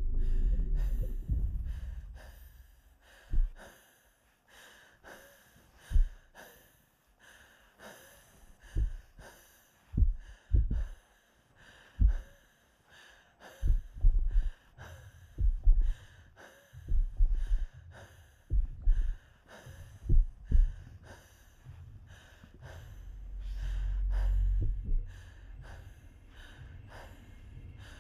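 A person breathing heavily in uneven breaths and sighs, one every second or two. A low rumble swells and fades near the end.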